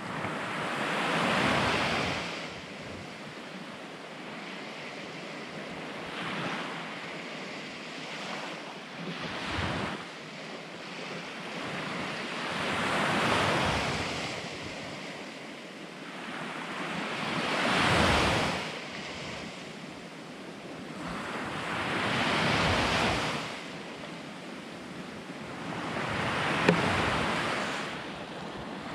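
Sea waves breaking and washing up a pebble beach, each surge swelling and fading about every four to five seconds, with wind on the microphone.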